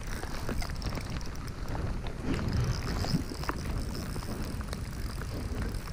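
Wind rumbling on the camera microphone, with scattered small ticks and taps from the kayak and fishing gear.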